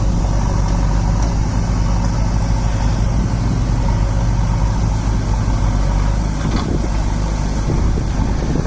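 Diesel engines of a Mahindra Arjun 555 DI four-cylinder tractor and a backhoe loader running together: a loud, steady low drone that holds an even pace.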